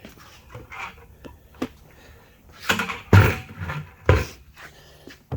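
A few short metal clunks and knocks from tools and engine parts being handled during crankshaft installation, with the two loudest about three and four seconds in.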